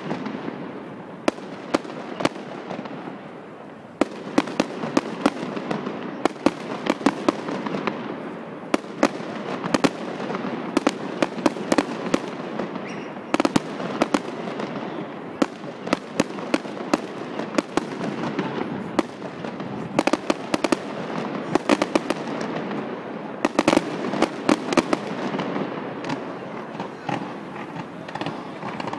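Aerial fireworks display: a rapid, irregular run of sharp bangs and cracks from bursting shells over a steady rushing crackle. It grows denser about four seconds in and stays that way.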